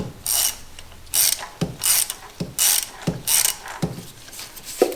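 Socket-wrench ratchet clicking in a regular series of short back-strokes, a little faster than one a second, as a spark plug is worked loose.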